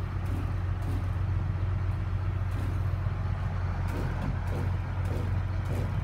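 A large vehicle engine idling steadily, a constant low hum.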